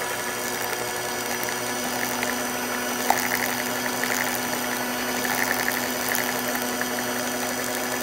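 Electric stand mixer running at a steady speed, its two metal beaters whipping fresh cream and sugar into whipped-cream frosting; a constant motor hum with a faint whine, the cream nearly stiff.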